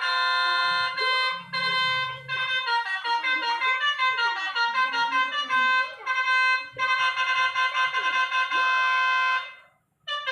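Multi-tone musical bus horn (telolet horn) playing a tune. It sounds a held chord and a short repeat, then a quick run of changing notes, then a long chord that cuts off near the end.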